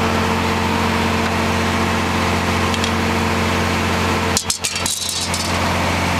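Vermeer BC2000 brush chipper running, a steady engine hum with constant low tones. A short patch of clicks and a brief dip in the sound come about four and a half seconds in.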